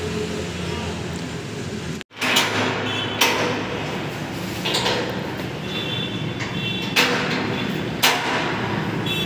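A sheet-metal door being bolted and padlocked: about five sharp metallic clacks of the bolt, hasp and padlock, some leaving a brief metallic ring, over a steady low hum.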